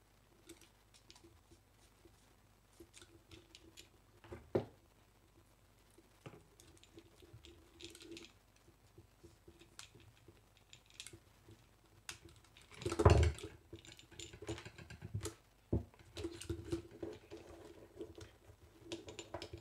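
Small scattered clicks and rustles of hands handling electrical wires and push-button switches, with one louder knock about two-thirds of the way through.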